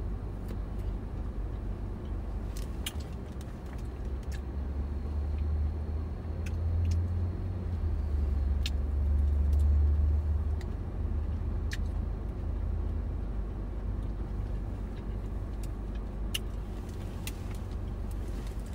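Low vehicle rumble heard from inside a car's cabin, swelling for several seconds midway and then settling back, with a few faint clicks scattered through it.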